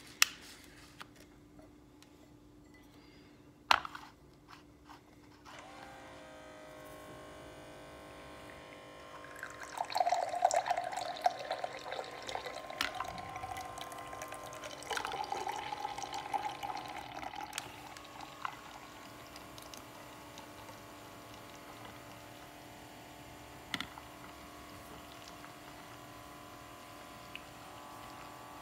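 Guinness pouring from a draft tap into a pint glass: a steady stream splashing and frothing, loudest for several seconds near the middle, then settling to a quieter, even flow as the glass fills. A single click comes about four seconds in, before the flow starts.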